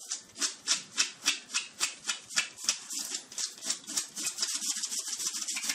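A dog digging at a doormat with its front paws: rapid claw scratching on the mat's bristles, about three to four strokes a second, coming quicker and lighter in the second half.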